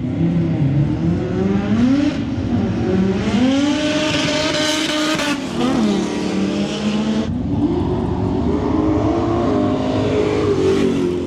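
High-powered V8 cars running hard, their engine pitch repeatedly climbing and dropping as they rev and accelerate, loudest around the middle. About seven seconds in the sound changes abruptly to an engine holding a steadier note.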